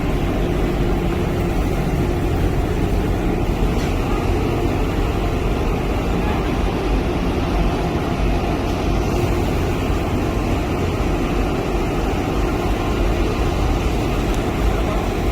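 Steady low rumble of a running vehicle engine, with constant noise and no distinct events.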